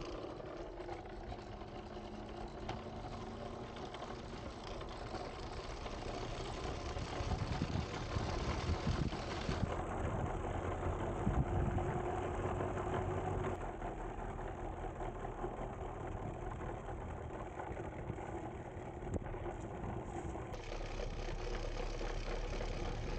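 Prototype electric rail cart rolling along old steel rails: a steady rumble and rattle from its wheels on the track, with scattered knocks.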